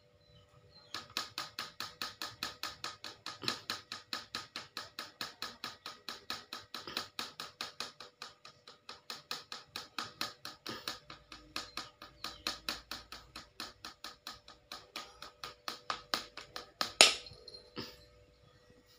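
Broom sweeping a tiled floor in quick, regular strokes, about four or five a second, with one louder stroke near the end.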